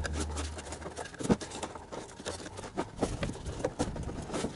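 Irregular clicks, knocks and scrapes of hard parts being handled as the blower motor of a Ford Explorer is worked loose and pulled out, with a brief low hum near the start.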